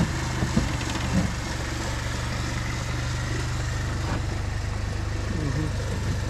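Mercedes A150's four-cylinder petrol engine idling steadily as the car creeps slowly forward. There are a few short knocks in the first second or so.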